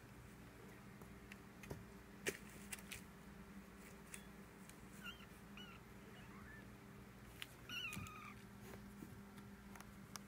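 Four-week-old kittens mewing: a few faint, short, high mews about five seconds in, then a louder mew near eight seconds. Scattered light clicks and taps, with a sharp click about two seconds in.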